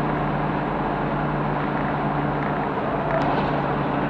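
Steady rushing road and wind noise inside a car cruising at highway speed, about 90 km/h, picked up by the dashcam's microphone.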